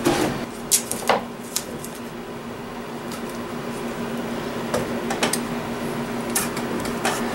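Blue painter's tape being pulled off the roll and torn into strips: a scattering of short rips and crackles, about eight in all, over a steady low hum.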